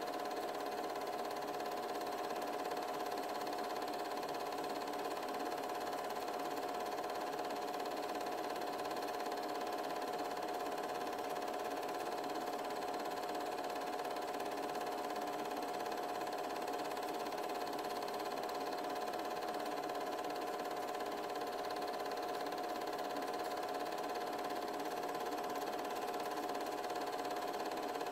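8mm film projector running: a steady mechanical whir with a constant hum-like tone that never changes.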